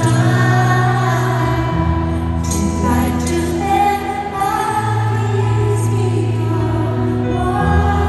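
Live pop ballad performance: a woman singing long held notes into a microphone over keyboard accompaniment, with sustained bass notes that change every few seconds.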